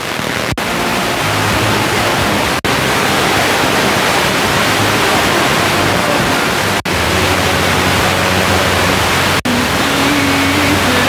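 FM radio static, a loud steady hiss from a phone's FM tuner tuned between stations, cut by four brief silent gaps as the tuner steps to the next frequency.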